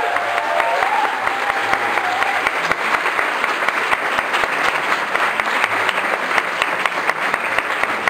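Dense audience applause, many hands clapping at once, with a last held musical tone trailing off in the first two seconds or so.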